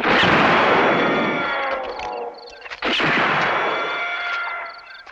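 Two sharp gunshot-like cracks about three seconds apart, each trailing off into a long fading rush laced with faint whistling tones that slowly fall in pitch, like bullet ricochets. They are cut together as part of an electroacoustic sound-art composition.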